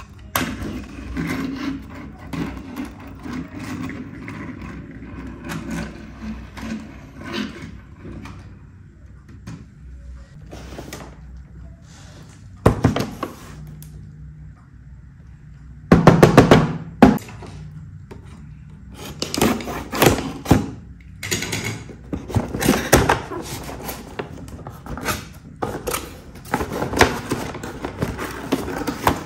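Toy vehicles and a cardboard toy box being handled: irregular plastic clicks and knocks with cardboard rubbing. The loudest knocks come in a cluster a little past the middle.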